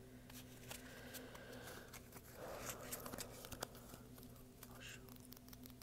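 Playing cards handled close to the microphone: quick small clicks and taps, with a brief rustling riffle about two and a half seconds in.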